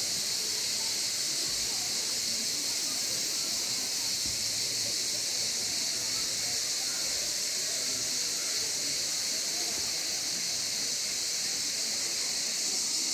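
Waterfall running: a steady, unbroken high hiss of falling water.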